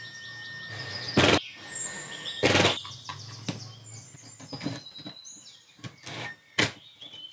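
Cordless driver driving hinge screws into particle board in several short bursts. Birds chirp faintly in the background.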